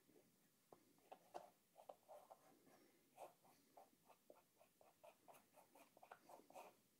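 Faint dabbing and scratching of a square-edged paintbrush loaded with acrylic paint on textured canvas, a quick run of short strokes about four a second.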